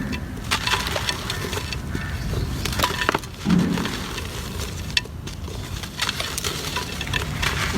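Chunks of gritty cement being crumbled and crushed by hand: a continuous run of crackling, gritty crunches and sharp snaps, with a duller low thump about three and a half seconds in.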